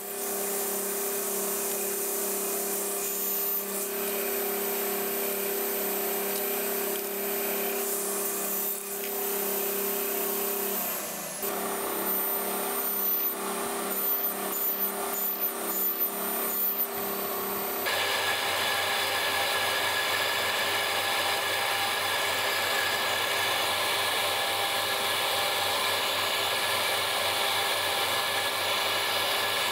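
Electric power tools running steadily on a woodworking job. One motor runs until about 11 seconds in; then come several evenly spaced strokes, and from about 18 seconds a different steady motor sound with a lower hum takes over.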